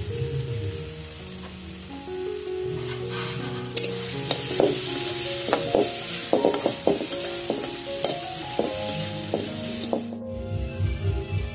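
Green mango slices sizzling in oil in a steel kadai, with a metal spatula scraping and knocking against the pan as they are stirred. From about four seconds in, the sizzle gets louder and the spatula strikes come thick and fast. Background music plays along, and near the end it takes over with a beat.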